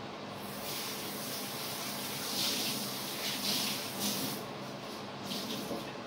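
Trigger spray bottle of degreaser spraying in several short hissing bursts.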